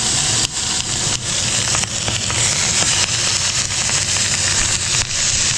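Chicken pieces sizzling in hot ghee in a frying pan, just laid in skin side down: a dense, steady crackling hiss.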